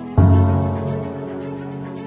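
Gentle background music: a sustained chord struck just after the start, slowly fading away.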